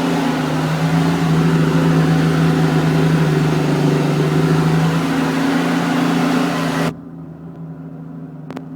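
New Holland TM130 tractor's six-cylinder diesel engine running steadily under load while pulling a four-furrow plough through wet clay. About seven seconds in, the sound drops suddenly to a muffled, quieter engine drone.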